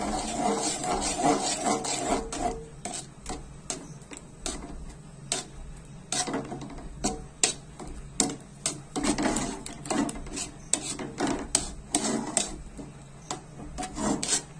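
Metal spatula scraping and stirring thick mango jelly around a metal kadai: quick, irregular scrapes and clicks of metal on metal.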